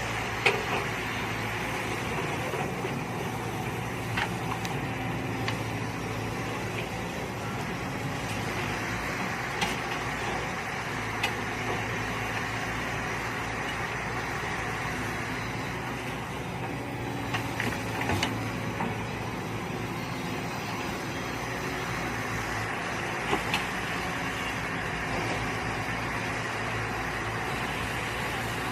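Mini excavator engine running steadily while digging, with a few sharp knocks and clanks from the bucket and arm now and then.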